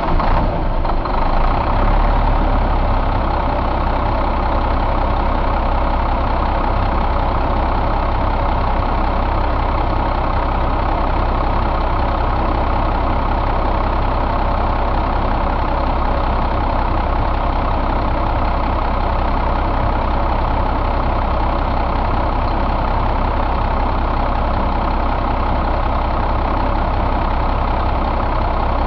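1996 Cummins M11 inline-six diesel engine idling, its level settling over the first couple of seconds and then running steady.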